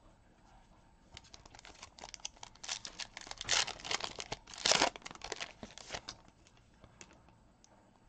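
Foil wrapper of a baseball card pack being torn open and crumpled by hand: a run of crinkling and tearing starting about a second in, loudest around the middle, and dying away after about six seconds.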